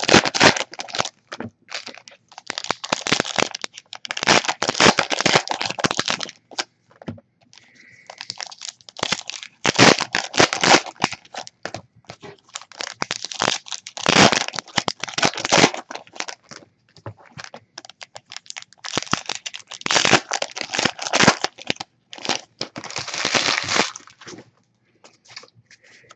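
Foil trading-card pack wrappers being torn open and crumpled by hand, in about six separate bursts of crinkling and tearing with short pauses between them.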